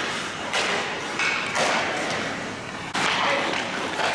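Ice hockey skate blades scraping and hissing on the ice, with stick-on-puck clacks, echoing in an indoor rink; a sharp hit comes about three seconds in.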